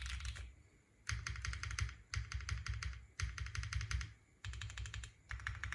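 Neo65 gasket-mount mechanical keyboard with lubed Lily tactile switches being typed on fast, in bursts of about a second separated by short pauses.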